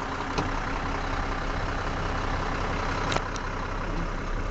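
Mack AC straight-six diesel engine of a tandem-axle day cab truck idling steadily, with a few sharp knocks from climbing up into the cab, one shortly after the start and two about three seconds in.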